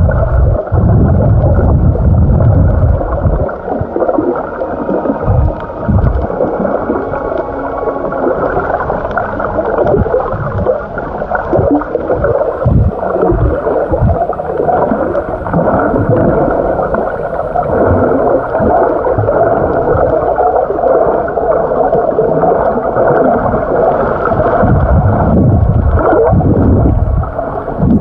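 Muffled underwater water noise: uneven sloshing and gurgling with occasional dull low thumps, all heard dull with no treble.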